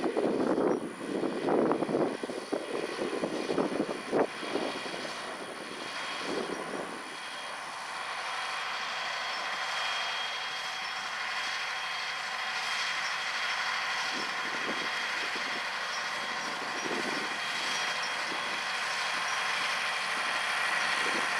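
Farm tractor running steadily at working speed, with a faint steady whine over its engine noise. In the first several seconds irregular gusts of noise come and go.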